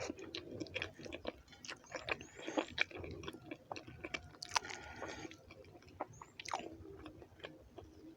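Close-miked chewing of a mouthful of rice and beans: irregular wet mouth clicks and smacks, several a second.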